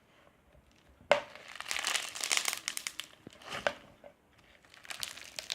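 Foam-bead slime squeezed and kneaded by hand, the beads crackling and crunching in dense bursts starting about a second in, with a shorter spell in the middle and another near the end.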